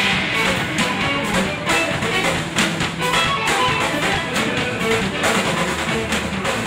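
Live electric guitar, electric bass and drum kit playing together as a trio, the drums and cymbals struck steadily under the guitar and bass lines.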